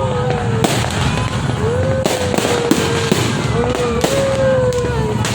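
Fireworks bursting in a dense, continuous barrage of pops and crackles. A pitched tone swoops up and holds for a second or so three times over the top.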